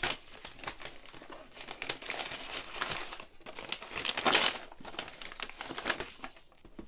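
Brown paper wrapping being pulled off and crumpled around a cardboard box, in irregular crinkling rustles, loudest about four seconds in.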